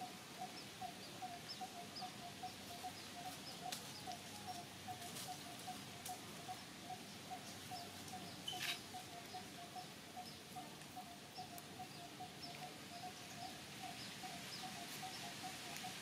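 Outdoor wildlife ambience: a steady fast series of short low notes, about four or five a second, with thin high chirps repeating about twice a second and one brief sharper call a little past the middle.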